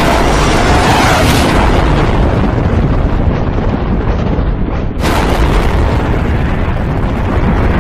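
Loud, continuous rushing rumble of a dubbed-in jet-thrust sound effect, with a faint steady tone over it at first. It breaks off and starts again about five seconds in.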